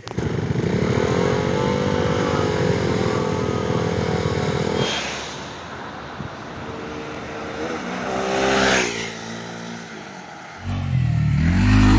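Motorcycle engines in a run of short cuts: one engine holds a steady note for the first few seconds, then after a cut a quieter engine sound rises and falls as a bike goes past around eight to nine seconds in. Near the end a loud low swelling sound comes in.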